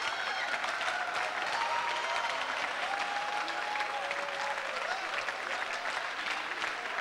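Audience laughing and applauding, steady clapping with voices calling out over it.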